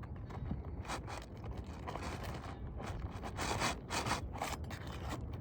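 Rough scraping and grating of an asphalt shingle being worked loose from its nails, in a series of irregular strokes, the longest about three seconds in.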